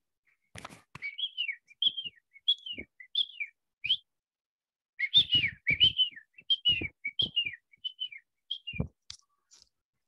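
Grey francolin calling: a rapid string of short whistled notes, each rising then falling, in two bouts with a short pause between them. The rhythm is the one people render as 'coffee cake, coffee cake, coffee cake'.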